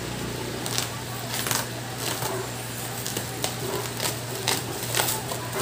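Box cutter slicing and tearing the plastic stretch wrap on a cardboard box: irregular crinkles, scratches and clicks, several a second at times.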